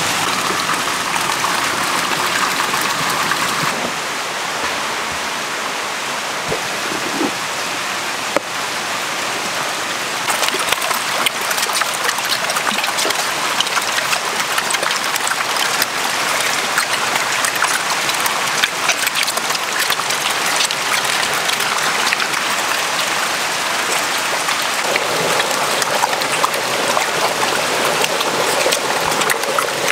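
Water splashing and churning as a mass of farmed eels thrash over lumps of paste feed in a tank, with many small splashes, busier from about ten seconds in.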